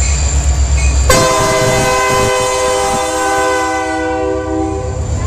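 Freight train of autorack cars rumbling past on the rails. About a second in, a diesel locomotive's air horn starts one long, chord-like blast that lasts about four seconds and stops near the end.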